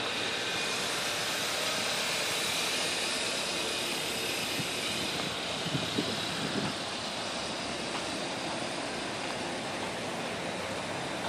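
Turbocharged 2.0-litre four-cylinder of a 2013 Hyundai Santa Fe idling, heard as a steady, even noise with no clear engine note. A few faint short sounds come about halfway through.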